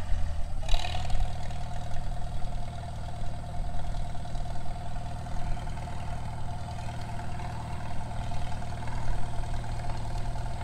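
Farmall H tractor's four-cylinder engine running steadily through a straight-pipe exhaust, heard at a distance as it is driven in road gear.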